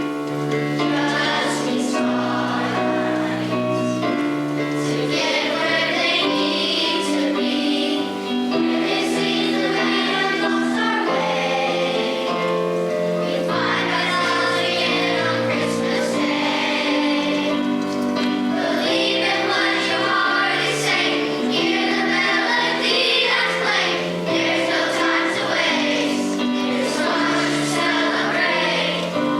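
A mixed high school choir singing a Christmas song, several voice parts holding sustained chords together.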